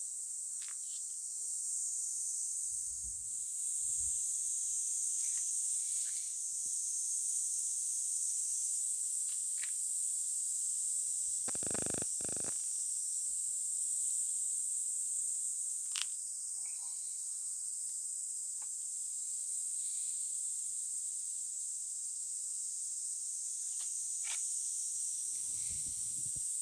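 Steady, high-pitched chorus of insects, with a short noise about halfway through.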